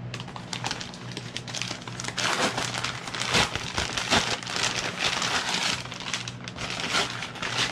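Brown kraft-paper mailer bag crinkling and rustling as it is handled and opened by hand: a busy run of irregular paper crackles, heaviest in the middle.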